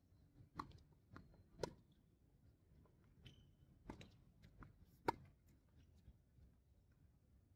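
Tennis rally on a hard court: a string of sharp pops from racquet strings striking the ball and the ball bouncing, the loudest about five seconds in, with a short squeak about three seconds in.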